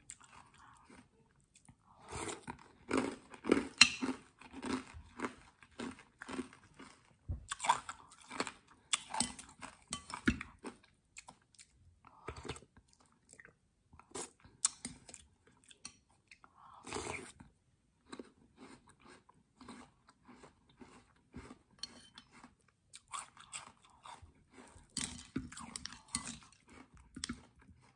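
Crunchy chewing of spoonfuls of iced Thai dessert: water chestnuts and toddy palm seeds in green syrup with ice. Irregular crisp crunches with short pauses between bites.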